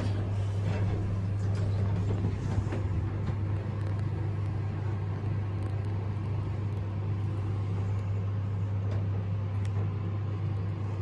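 Schindler 5500 machine-room-less lift travelling, a steady low hum and rumble of the ride heard from inside the car.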